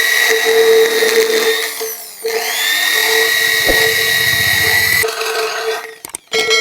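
Handheld electric grinder with a thin disc cutting metal away bit by bit. It runs in two bursts, a high whine with a grinding hiss: it slows briefly about two seconds in, spins back up to speed, and stops about five seconds in.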